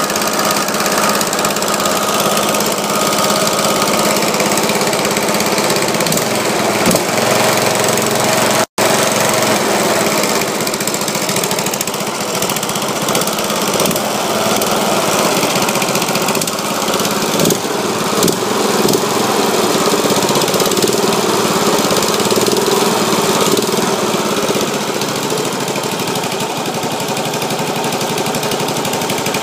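Briggs & Stratton Intek 15.5 HP OHV single-cylinder lawn tractor engine running steadily, with the sound breaking off for an instant about nine seconds in.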